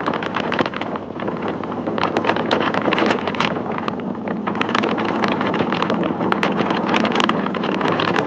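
Hurricane-force wind buffeting the microphone: a steady rush of wind and driving rain, with rapid gusty crackles all the way through.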